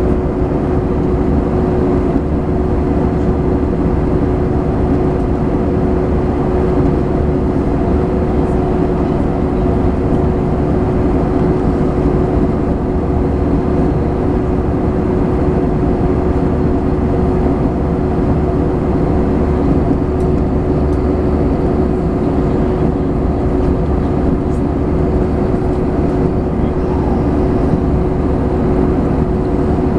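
Airliner cabin noise in cruise flight: a steady rush of engine and airflow noise with one even hum running under it, unchanging.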